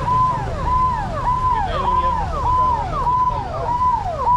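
An electronic siren-like tone that sweeps up to a held high note and slides down again, repeating about every 0.6 s, over a low street rumble.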